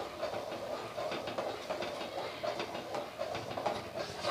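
Metal spoon stirring thick semolina porridge in a metal pot: a steady, rhythmic scraping and clinking against the pan, several strokes a second.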